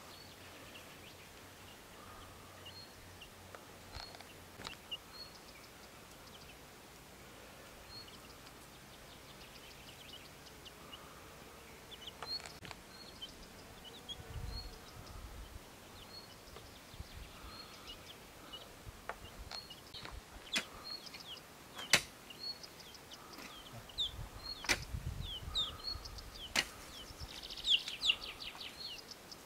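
Small birds chirping over and over in the background. In the second half comes a series of sharp knocks, a hand hoe chopping into stony garden soil.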